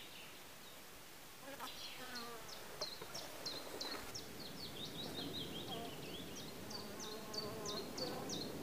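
Flying insects buzzing close by among the log-wall crevices, the hum wavering up and down in pitch as they fly about.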